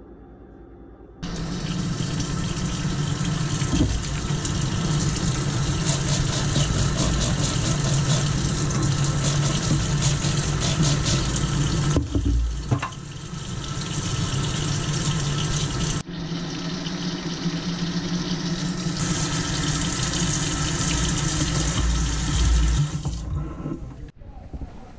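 Kitchen faucet running into a stainless steel sink, water splashing over a fishing reel's brass spool as it is rinsed. The water comes on about a second in, runs steadily with two brief breaks midway, and shuts off near the end.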